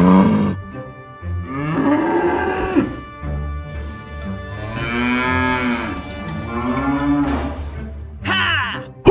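Cattle mooing: several long moos, each rising and then falling in pitch, over soft background music.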